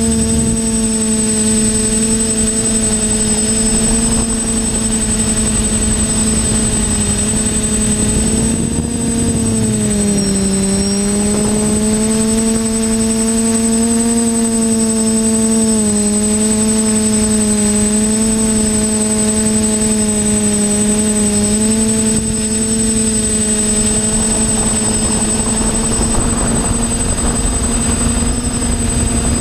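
Team Black Sheep Discovery quadcopter's brushless motors and propellers buzzing steadily, heard from the onboard camera, the pitch sagging and recovering twice as the throttle changes. Wind rush sits underneath, and a thin high whine runs steadily on top.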